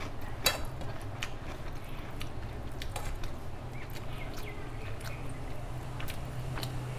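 A person chewing a mouthful of food by hand-eaten rice and fish curry, with scattered short clicks, over a steady low hum.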